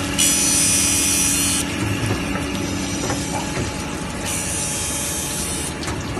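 Circular saw blade tooth-sharpening machine running with a steady hum, its grinding wheel hissing against the teeth in two passes of about a second and a half each, the second starting about four seconds in.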